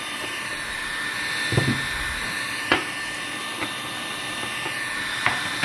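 Electric heat gun running, a steady blowing hiss with a faint whistle, as it shrinks a plastic seal band onto a jar lid. A few short, sharp knocks sound over it.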